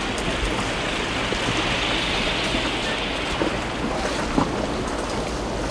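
Steady wind and sea noise, a hiss that swells about two seconds in and then eases.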